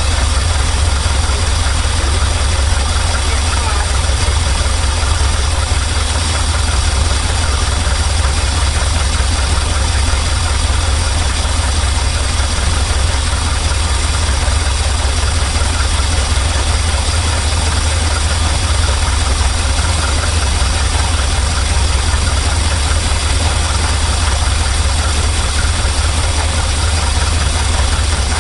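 Chevy C60 truck engine idling steadily on its freshly rebuilt carburetor, running smoothly.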